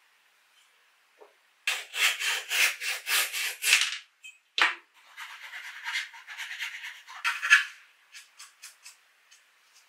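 Flush-cut hand saw cutting through a wooden dowel in quick back-and-forth strokes, about four a second, then a sharp click. A second, lighter run of sawing strokes follows, ending in a few soft ticks.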